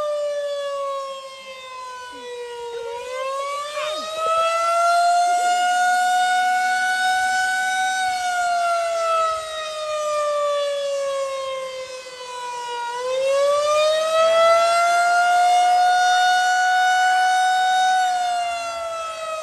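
Outdoor tornado warning siren wailing, one tone with many overtones. It slides down in pitch, climbs back up about three seconds in, holds, then falls slowly. It climbs again about thirteen seconds in and starts falling again near the end.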